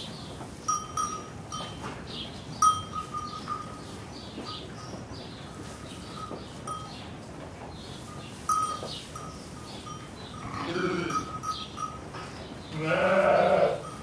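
Crowd ambience: footsteps and bustle of many people, with sharp clicks and brief ringing tones, a short call, and a louder call about a second long near the end.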